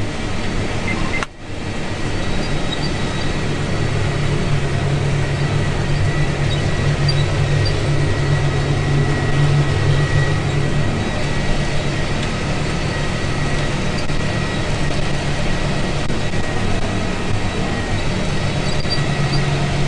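Tractor engine running steadily under load while pulling a harrow, a continuous low drone heard from inside the cab. The sound cuts out for a moment about a second in.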